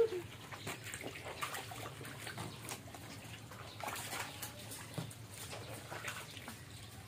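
Shallow water splashing and trickling in a tank crowded with young frogs, in small irregular splashes over a faint steady low hum.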